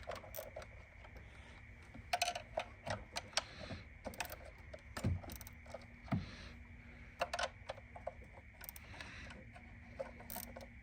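Socket wrench and extension on the 10 mm coil pack nuts, giving scattered metallic clicks and clinks in short clusters as the nuts are broken loose.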